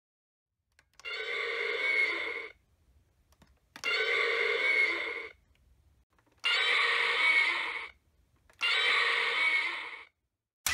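Bandai DX Daijinryuu dragon toy's electronic roar sound effect, played four times in a row through its built-in speaker, each roar about a second and a half long and set off by hand.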